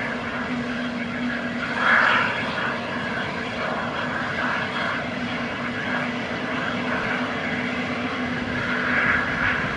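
Airbus A320neo's CFM LEAP-1A turbofans running at taxi idle: a steady engine hum with a low steady tone under it, swelling briefly about two seconds in and again near the end.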